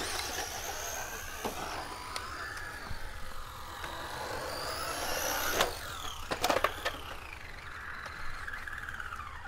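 Electric RC car's motor and drivetrain whining, the pitch rising and falling as it speeds up and slows across the concrete, with a few sharp knocks and clatters, the loudest about five and a half to six and a half seconds in.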